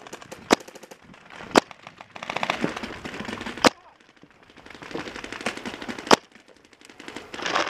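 Paintball markers firing: four sharp single shots a second or two apart, between stretches of rapid fire further off.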